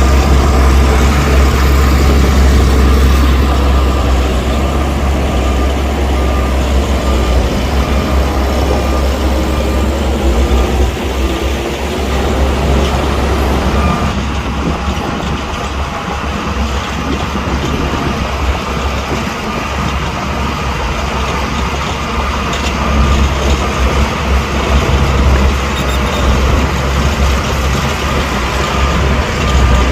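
Heavy diesel earthmoving machines running under load with a steady, loud low rumble. An engine tone rises in pitch a little before the middle.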